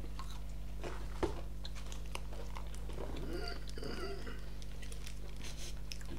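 Close-miked eating: biting into a burger and chewing fried chicken and fries, with many small wet clicks and crunches.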